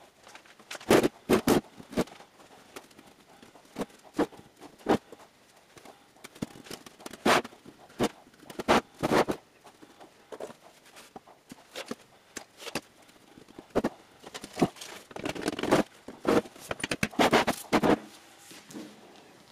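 Ceramic fiber insulation blanket and a steel ammo can being handled with gloved hands: irregular short rustles, scrapes and knocks as the blanket is pressed into the can, with quiet gaps between them.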